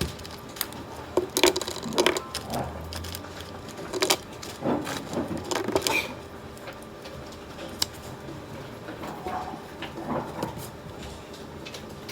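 Light clicks and knocks of small objects being handled and set down, coming in quick clusters in the first half, with a few softer ones near the end.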